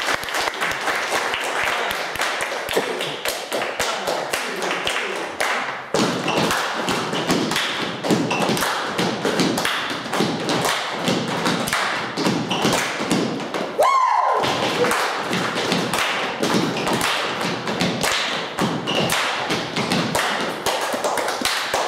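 Group body percussion without instruments: many hands clapping and slapping in quick, dense rhythm, with deeper thumps from stamping feet and slapped bodies joining about six seconds in.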